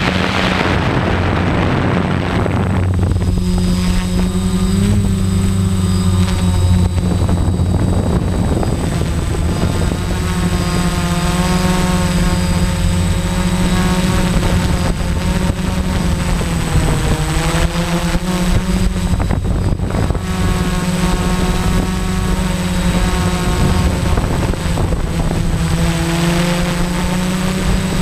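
DJI F550 hexacopter's electric motors and propellers buzzing in flight, picked up by its onboard camera: a steady pitched drone whose pitch wavers slightly as the throttle changes. There is a rush of wind on the microphone for the first few seconds.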